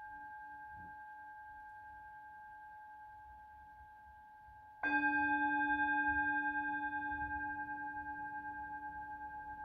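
Tibetan singing bowl: the ring of an earlier strike fading away, then the bowl struck again about five seconds in, ringing out with a low tone and several higher overtones that pulse slowly as they die away.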